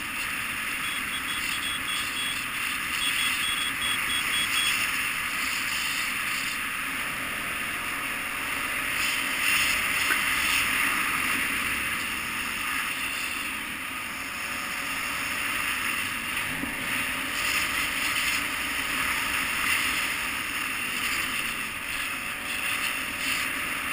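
KTM 990 Adventure motorcycle riding a gravel dirt road: a steady rush of wind and road noise, with the V-twin engine running underneath.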